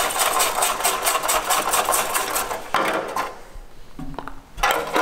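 Fast, rasping hand-scrubbing of a part in a bucket, many strokes in quick succession. It drops away about three seconds in and starts again near the end.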